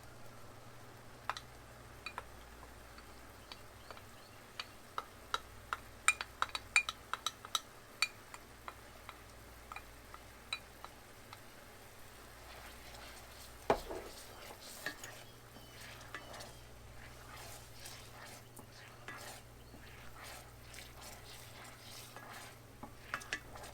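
Utensil tapping and scraping against a skillet as lemon zest is stirred into a simmering butter and lemon sauce, with a low sizzle underneath. Sharp clicks come thick in the first half, with one louder knock about 14 seconds in.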